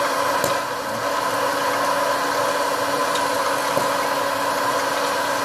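Hot-air popcorn machine running: its fan blows with a steady hum and hiss, and a few faint clicks come from the popping corn.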